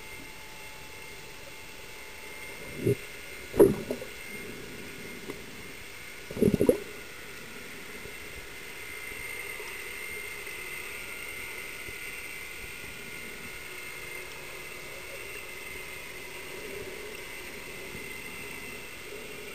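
Muffled underwater pool sound: a steady whirr with a faint high whine that grows a little louder from about nine seconds in. There are a few dull thumps between about three and seven seconds in, the loudest near four seconds.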